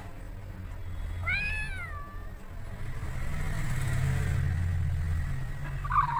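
A single domestic cat meow, rising then falling in pitch and lasting about a second: the sound effect of the Google Search 3D cat model. A low steady hum runs underneath.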